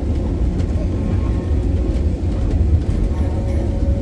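Tram running: a steady low rumble with a steady hum over it.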